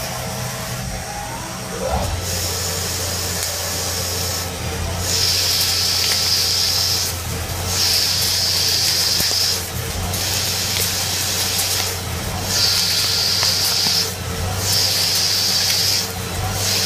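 CNC lathe turning a metal workpiece: a rising whine over the first two seconds as the spindle speeds up, then a steady spindle hum with a high hiss that comes and goes in stretches of about two seconds as the tool cuts.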